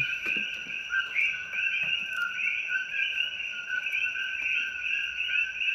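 A continuous chorus of small animals calling, many overlapping high chirps in two steady pitch bands.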